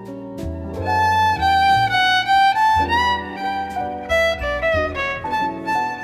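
Background music: a melodic instrumental tune with a bowed string lead and a steady bass line.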